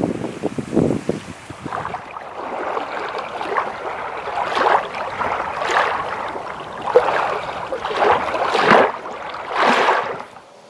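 Wind buffeting the microphone in gusts, then small waves washing onto a sandy shore, one surge of splashing about every second.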